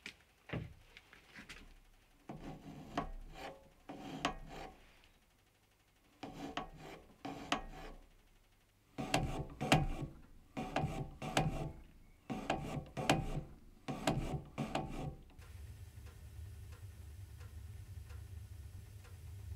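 Metal-cutting scrape from a boring tool working inside the bore of a steel ring turning on a mini lathe, in about seven short bursts that end about 15 seconds in. A steady low hum follows.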